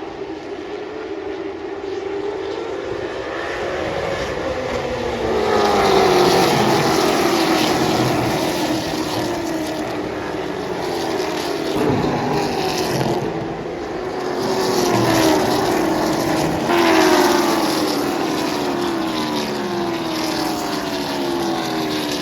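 A pack of late model stock cars racing on a short oval track, their V8 engines at full throttle, pitches rising and falling as cars pass one after another. The sound grows louder about six seconds in.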